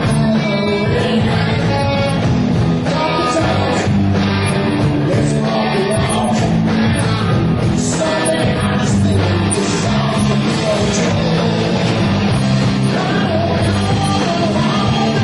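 Rock band playing live: electric guitars, bass and drums, with a singer.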